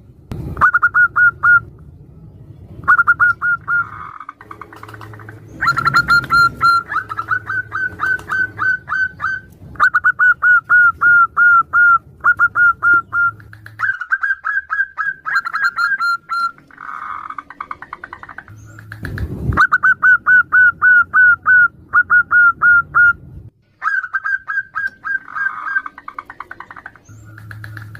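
Zebra doves (perkutut) calling back and forth: runs of rapid, clipped cooing notes, several a second, repeated in bursts with short pauses between.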